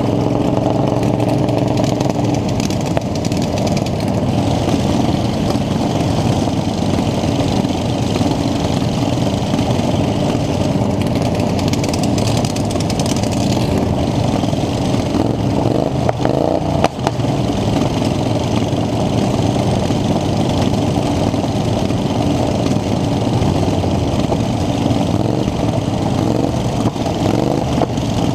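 Racing lawn mower engine running hard and loud without a break, its pitch shifting a little as the throttle changes.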